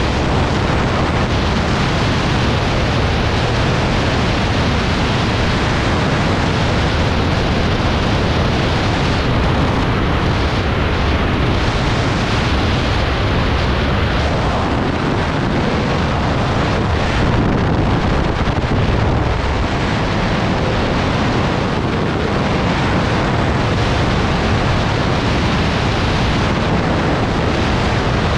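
Freefall wind rushing over the camera's microphone: a loud, steady roar of air with no break.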